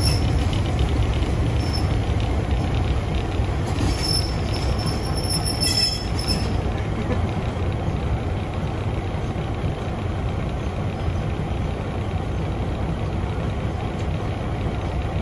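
Train slowing into a station: a steady low rumble from the running train, with high thin wheel squeal from braking about four to six seconds in. The rumble eases a little as the train draws almost to a stop.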